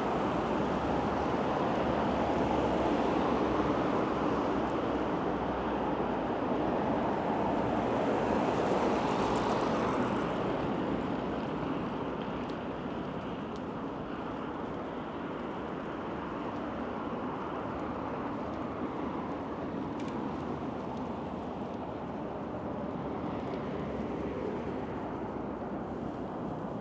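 Steady rush of wind and road noise while riding a bicycle, a little quieter from about ten seconds in.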